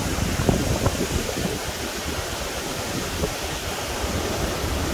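Steady rush of river water pouring through the fast channels and white water below a hydroelectric dam, with an uneven low rumble from wind on the microphone.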